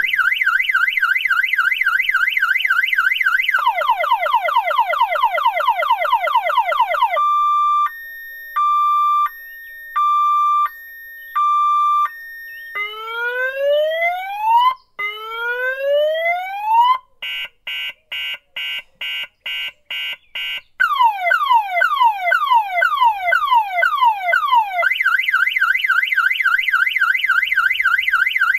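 Electronic car alarm siren cycling through its set of tones. It starts with a fast warble, then goes to quicker falling chirps, a two-tone alternating beep, two long rising whoops, a steady series of short beeps about two a second, and falling sweeps. Near the end it returns to the fast warble.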